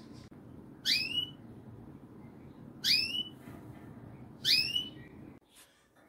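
Male red mosaic canary giving three short rising chirp calls, about two seconds apart.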